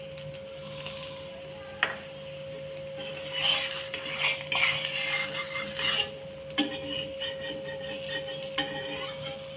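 Steel spatula scraping and tapping against an iron tawa as a moong dal chilla is worked loose from the pan: a sharp tap about two seconds in, then repeated scraping strokes from about three seconds on. A steady thin hum runs underneath.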